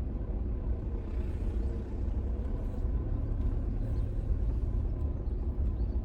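Steady low rumble of a vehicle driving, engine and tyre noise heard from inside the cabin.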